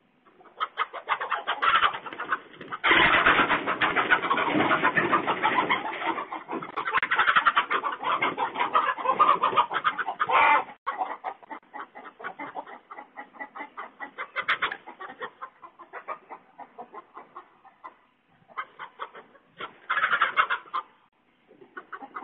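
Backyard hens clucking and cackling through a security camera's microphone. There is a long loud stretch of dense cackling in the first half that cuts off suddenly, followed by softer, scattered clucks.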